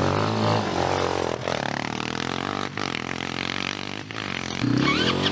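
Small ATV engines running and revving, their pitch shifting up and down. About four and a half seconds in, an engine revs up louder and rises in pitch.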